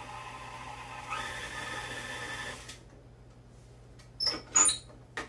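KitchenAid stand mixer running as it mixes cookie dough. About a second in it steps up in speed and loudness, then shuts off about halfway through. Near the end come a few sharp, ringing metal clinks as the metal mixing bowl is handled.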